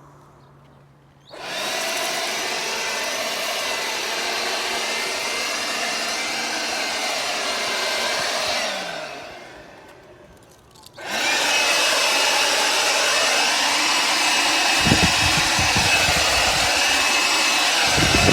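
Makita DUB185Z 18 V cordless blower running. It starts about a second in, runs steadily, winds down around eight seconds in, then starts again a couple of seconds later and runs louder with a steady high whine. Low thumps come near the end.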